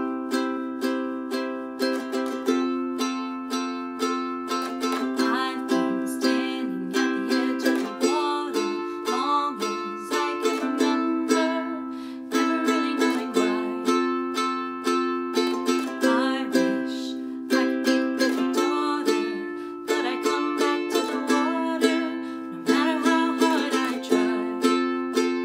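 Ukulele strummed in a steady rhythm, its chords ringing on between strokes, with a woman singing along over it from about five seconds in.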